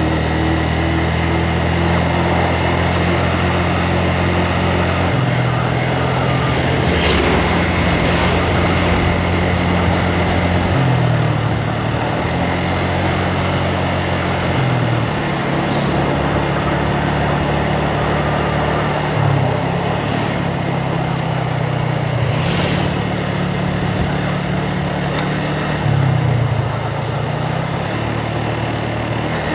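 Yamaha Vixion's single-cylinder four-stroke engine running under way, its pitch stepping up and down several times as throttle and gears change; the engine note is rough.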